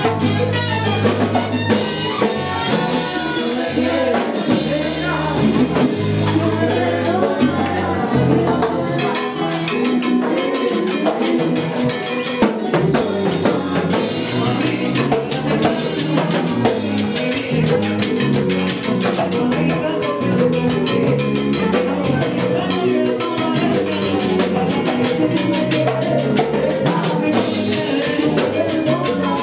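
A salsa orchestra playing, with drums and Latin percussion carrying the beat.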